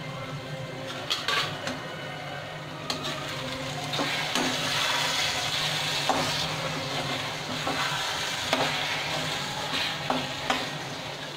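Diced potatoes and masala sizzling in a steel kadhai while a metal spatula stirs them, scraping and knocking against the pan now and then; they are being stirred to check whether the potatoes are cooked. The sizzling grows louder from about four seconds in.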